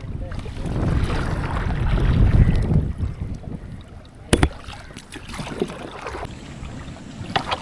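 Kayak paddling on water, with wind rumbling on the microphone for the first few seconds. There is a single sharp knock about four seconds in, then small splashes and clicks.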